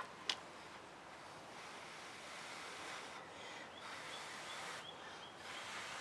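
A person blowing on wet acrylic paint to push it across the canvas: a soft breathy hiss that swells about a second and a half in and breaks off briefly a couple of times between breaths.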